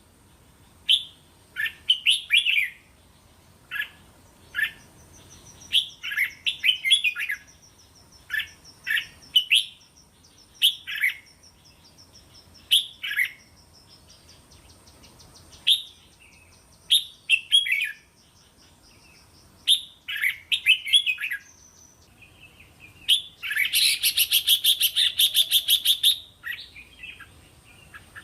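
Red-whiskered bulbul singing short, repeated song phrases, a second or two apart, for use as lure and training song. About 23 seconds in, it breaks into a fast chattering run that lasts about three seconds.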